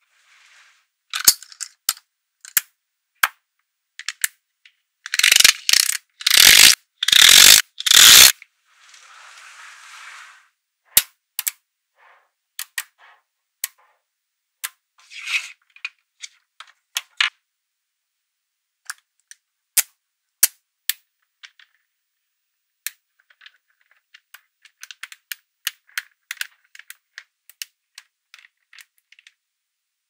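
Small magnetic balls clicking and snapping together as blocks of them are handled and pressed into place, in scattered sharp clicks. A run of four loud, rattling clatters comes about five to eight seconds in, and quicker clusters of clicks come near the end.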